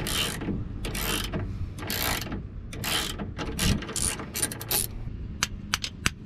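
A ratchet wrench on a socket backing a rusty nut off an old shock absorber's top stud: a series of scraping, grinding strokes as the rusted nut turns, then a quick run of even ratchet clicks, about four a second, near the end.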